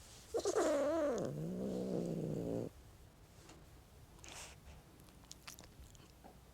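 Domestic cat giving one long, wavering meow about half a second in that slides down in pitch into a low, steady growl, cutting off sharply after about two seconds.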